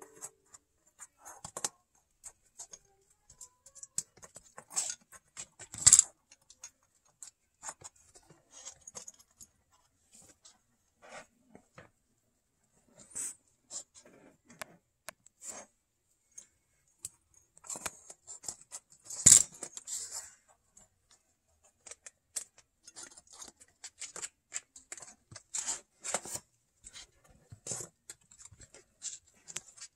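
Kittens pawing at, scrabbling over and biting paper coin flips and coin holders in small plastic stands: irregular little clicks, scrapes and crinkles, with two louder knocks, one about 6 seconds in and one near the middle.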